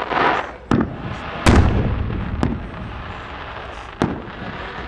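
A 4-inch multi-break cylinder firework shell bursting overhead: a rushing burst at the start, then four sharp bangs spread over about three seconds, the loudest about a second and a half in with a low boom rolling after it.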